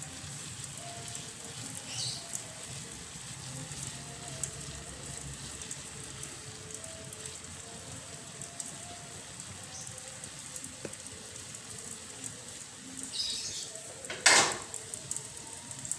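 Steady hiss of a pan of water and rock sugar heating on the stove as the sugar melts, with one sharp clank against the pan near the end.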